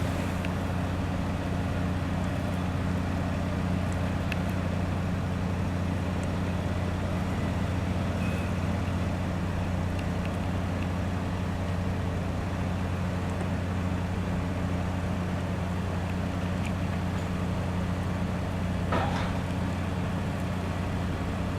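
Steady low drone of an idling engine, with a brief sharper sound near the end.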